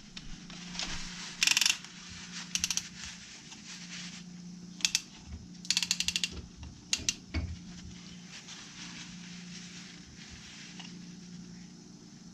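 A hand ratchet clicking in several short runs of rapid clicks, over a steady low hum.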